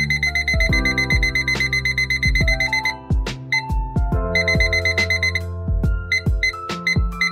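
Kissarex digital kitchen timer's beeper sounding in a rapid high-pitched chatter while its seconds button is held to fast-forward the setting. It stops about three seconds in, chatters again for about a second, then gives single short beeps roughly three a second near the end as the button is pressed step by step. Background music with a beat plays underneath.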